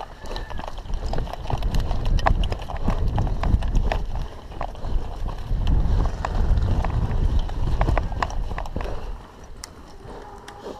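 Footsteps and gear rustle of an airsoft player walking, with heavy rumbling bumps on the body-worn camera's microphone and scattered sharp clicks; it quietens near the end.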